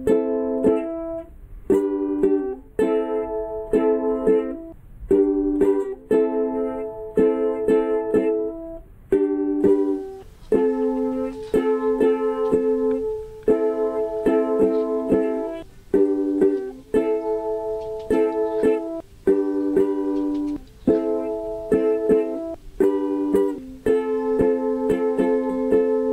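Ukulele strumming chords in a steady rhythm, with no singing.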